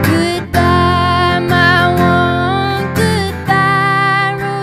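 A woman singing long held notes, some wavering with vibrato, over a strummed acoustic guitar.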